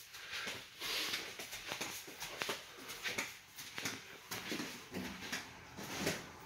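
Footsteps walking along a railway passenger car's aisle and over the vestibule floor plate between cars, an irregular series of short knocks and clicks, with soft breathing close to the microphone.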